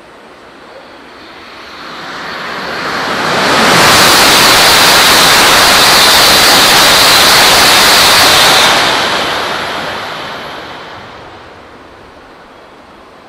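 E5 series Shinkansen train running through the station at speed without stopping: a rushing noise that builds over a few seconds, holds very loud for about five seconds with a strong hiss, then fades away.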